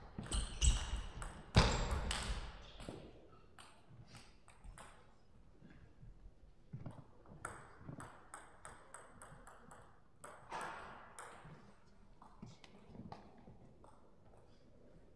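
Table tennis ball hits and bounces: a few louder strikes as the rally ends in the first three seconds, then a run of light, irregular pings as the plastic ball is bounced on the table and floor between points.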